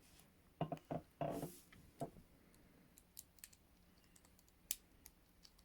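ASP Model 200 hinged handcuffs being worked with a handcuff key: scattered small metallic clicks and brief rattles of the key in the lock and the cuffs moving. The clicks are busiest in the first two seconds, then come singly.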